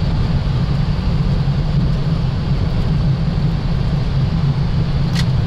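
Boeing 737 rolling down the runway after touchdown, heard from the cockpit: a steady low rumble of wheels and engines, with one short click near the end.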